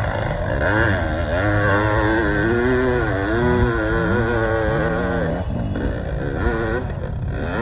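Motorcycle engine revving up and down again and again, with a short dip in the revs about five and a half seconds in.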